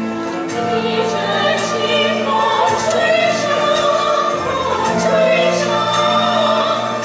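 Music: singing in a classical, operatic style with held, wavering notes over sustained accompaniment, the voices coming in about a second in.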